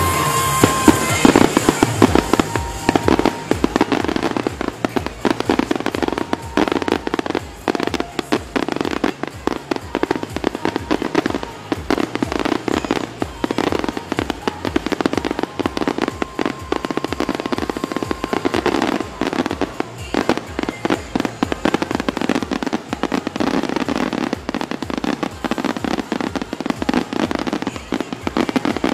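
Fireworks display: a continuous, rapid barrage of aerial shells bursting, with many sharp bangs and crackles packed close together.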